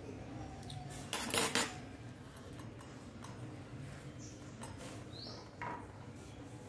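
Metal spoon clinking and clattering against a plate, a short burst of clinks about a second in.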